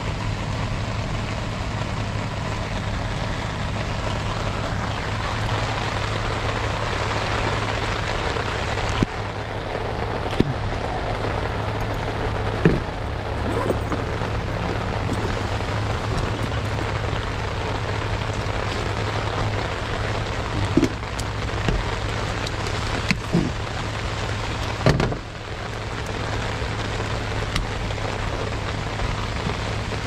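Steady low hum under a continuous rushing noise, with a handful of sharp knocks and clicks as a tool bag and tools are handled on the condenser's sheet-metal top.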